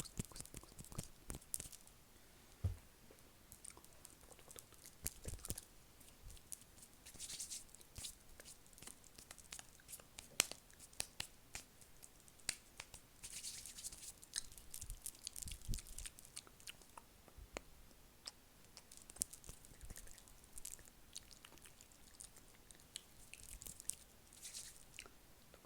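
Close-miked ASMR mouth sounds: quick, irregular wet clicks and smacks, with a few short breathy hisses.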